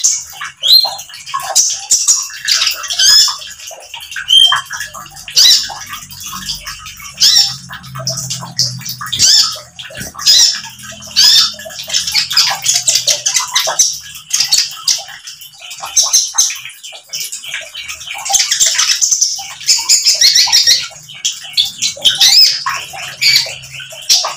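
Kolibri ninja (Van Hasselt's sunbird) singing hard in the 'nembak' style: a fast, almost unbroken run of high, sharp chirps and short trills, with only brief pauses.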